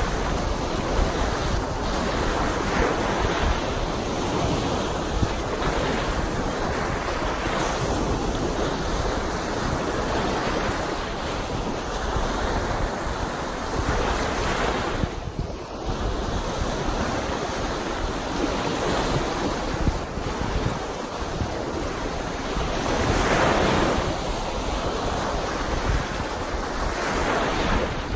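Choppy lake waves breaking and washing onto the shore, the surf surging and easing with each wave, with a brief lull about halfway through. Wind buffets the microphone.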